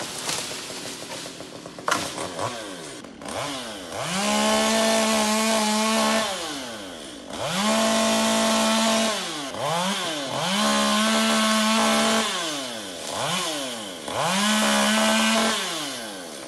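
Chainsaw revved to full throttle four times, holding a steady high pitch for about two seconds each while cutting alder branches, and dropping back toward idle between cuts. Before the first cut it runs low, with a sharp knock about two seconds in.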